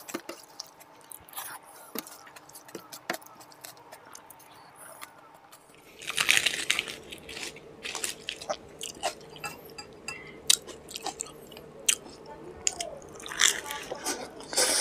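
Close-miked eating sounds: fingers squishing and mixing soft khichuri on a metal plate, with small clicks, then from about six seconds in, louder biting and chewing with a mouth full of puri and khichuri.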